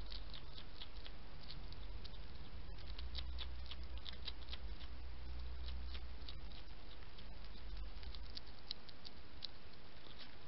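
European hedgehog eating, a fast irregular run of small wet clicks from its chewing and smacking, over a steady low hum.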